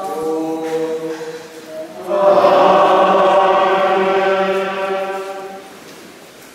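Choir singing, its notes changing at first, then swelling about two seconds in to a full held chord that dies away near the end.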